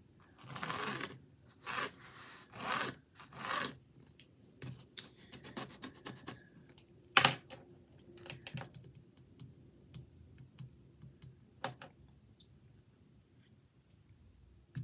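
Rubbing strokes on a drawing canvas: four scratchy strokes in the first four seconds, then scattered light taps and clicks, one sharper click about seven seconds in.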